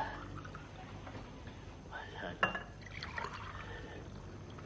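A drink being poured into a glass, with a sharp clink of glass about halfway through.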